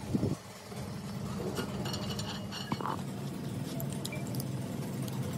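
Light metallic clinks of a spanner and steel parts on the steel end cap of a hydraulic jack being unbolted, over a steady low engine hum.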